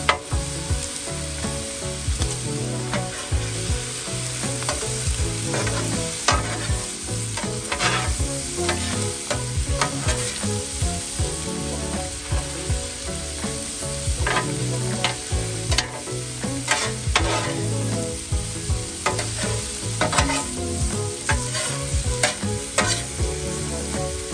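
Steak, shrimp and vegetables sizzling on a hot steel flat-top griddle, with a metal spatula repeatedly scraping and clacking against the cooking surface as the stir fry is tossed.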